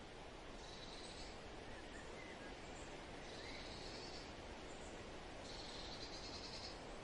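Quiet outdoor ambience: a steady hiss with a high, fast trilling call about a second long that repeats three times, a couple of seconds apart, and a few faint short chirps.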